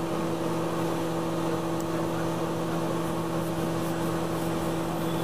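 A steady machine hum with a low tone and its overtone over an even background noise, unchanging throughout.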